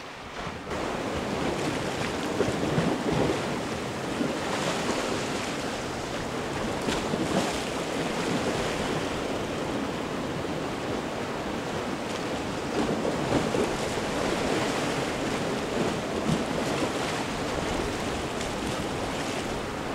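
Sea waves washing against rocks, a steady rush with wind buffeting the microphone.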